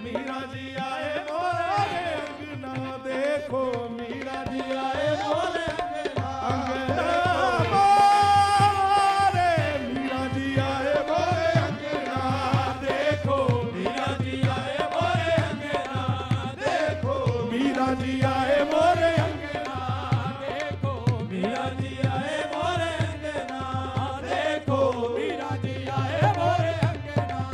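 Qawwali ensemble performing: singers' voices over harmonium and tabla. About eight seconds in, a voice holds one long high note, the loudest moment.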